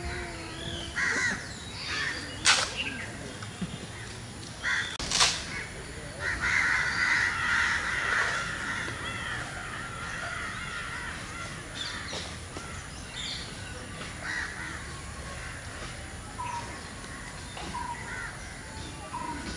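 Birds calling again and again, short calls with one longer one. Two sharp clicks or knocks come about two and a half and five seconds in.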